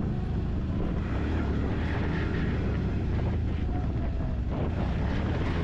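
Quad bike (ATV) engine running steadily while being ridden, a continuous low rumble.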